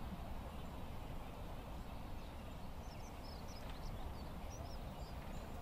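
Quiet background ambience with a low steady rumble and faint, short, high bird chirps scattered through the middle.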